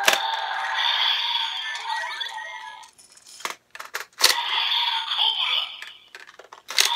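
DX Evol Driver toy transformation belt playing its electronic sound effects and recorded voice and music from its small speaker, with sharp plastic clicks as its parts are handled. The audio breaks off for about a second and a half near the middle, then starts again.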